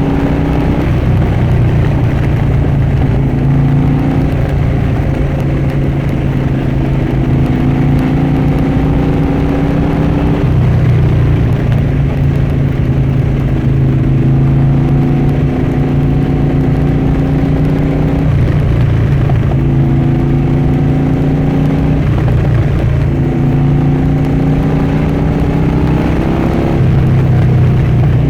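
Harley-Davidson Dyna Switchback's V-twin engine and exhaust under way, the note climbing slowly with speed and dropping back several times as it shifts up through the gears.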